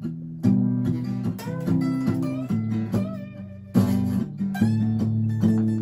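Two guitars improvising together: an acoustic guitar strumming chords while a second guitar plays lead lines over them, some notes bending in pitch.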